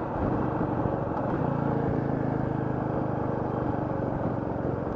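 Royal Enfield Meteor 350's single-cylinder engine running steadily while riding at a constant pace, with road and wind noise under it.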